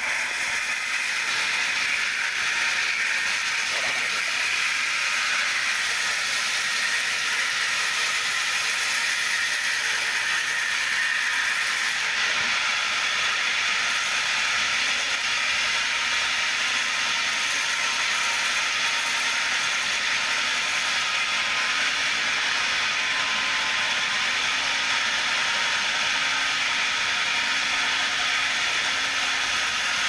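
Large log bandsaw mill running steadily: a continuous high-pitched whine and hiss with no breaks.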